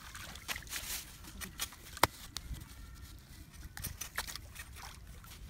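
Rustling of cut leafy brush being gathered and dragged over grass, with scattered light knocks and clicks from the tools; one sharp click about two seconds in is the loudest.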